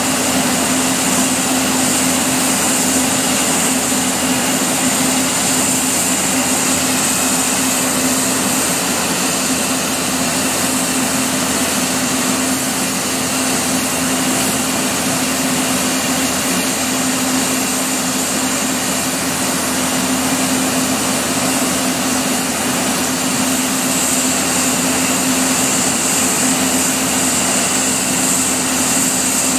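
Steady hiss of compressed air leaking from the locomotive's UL valve, over a steady hum from the stationary locomotive. The leak has cut off the train's tractive effort.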